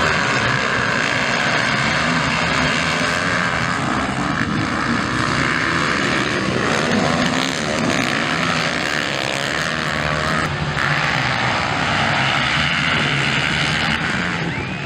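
Many motocross bike engines running together, a loud steady drone in which several engines rise and fall in pitch as they rev.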